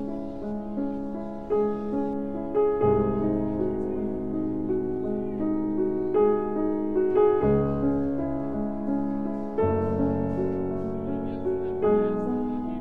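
Background music with sustained chords that change every second or two over a low bass line.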